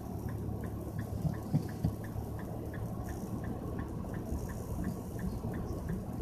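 Nissan Fuga 350GT's 3.5-litre V6 running quietly inside the cabin, with an even, light ticking about three times a second over the low hum.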